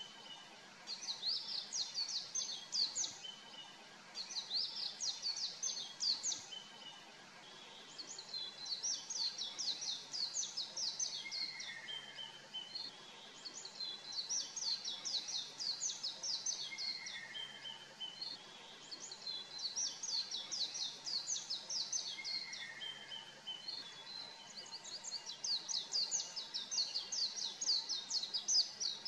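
Oriental white-eye singing: bouts of rapid, high twittering notes a couple of seconds long, repeated every few seconds, with a short falling note three times.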